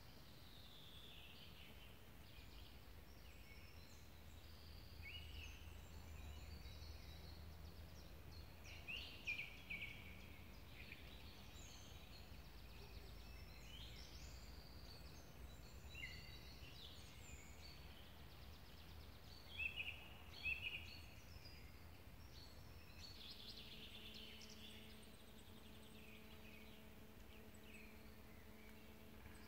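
Songbirds singing and calling, a few calls louder than the rest, over a faint low rumble. About three-quarters of the way through, a steady low droning hum comes in underneath.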